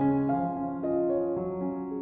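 Soft background piano music, slow notes and chords changing about every half second.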